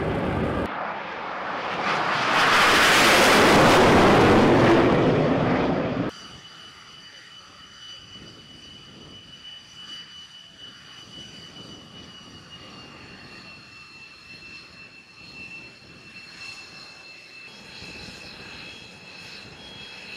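Jet engine of an X-47B drone swelling to a loud rush as it flies low past, cut off abruptly about six seconds in. Then a quieter, steady high-pitched jet whine from an aircraft idling on deck, dropping slightly in pitch about halfway through.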